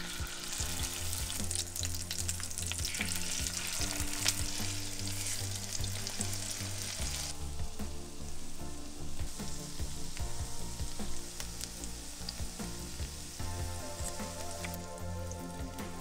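Chicken and zucchini cutlets sizzling in vegetable oil in a frying pan as they are laid in and fry. The sizzle drops to a quieter level about seven seconds in.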